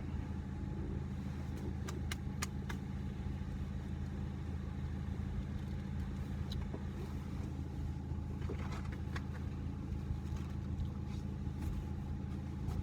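Car engine idling steadily, heard from inside the cabin as a low even hum, with a few faint clicks.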